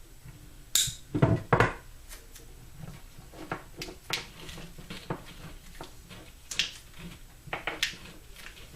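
Handling sounds of vinyl electrical tape being pulled off the roll and wrapped around a wiring-harness loom: scattered clicks, crackles and light knocks, loudest about a second in.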